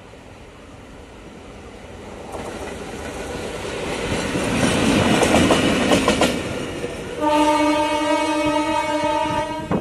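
Indian Railways WDM-3A diesel locomotive running light past the trackside: its ALCO engine and its wheels clicking over the rail joints build to a peak about five seconds in, then fade. A little after seven seconds its horn sounds one steady tone for about two and a half seconds.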